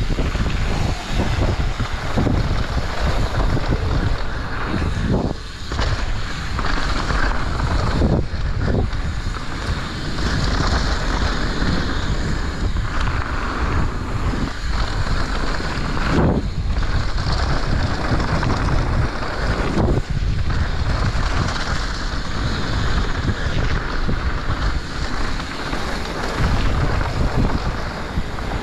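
Wind buffeting an action camera's microphone at speed during a mountain-bike descent, over the steady rumble of tyres rolling on a dirt trail, with occasional knocks from the bike.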